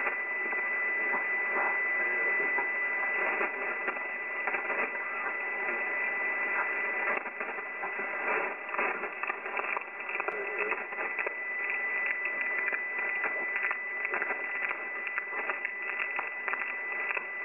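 Shortwave amateur radio receiver on the 40-metre band (7177 kHz) giving out steady, fluttering band noise in a narrow single-sideband passband, with a constant high whistle of a carrier, while a weak station is listened for.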